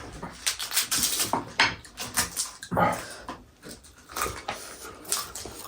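Eating noises: a run of short clicks, smacks and slurps from mouths, spoons and bowls, with a brief higher sound about three seconds in.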